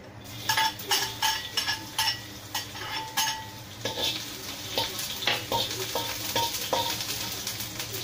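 Chopped garlic sizzling as it goes into a hot wok, with a string of sharp metal clanks against the wok in the first few seconds, then a steady sizzle with repeated spatula scrapes from about halfway through.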